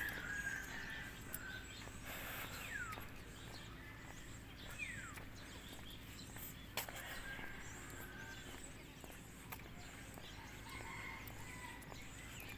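Faint, distant roosters crowing, once near the start and again near the end, with a couple of short falling bird calls in between over a quiet outdoor background.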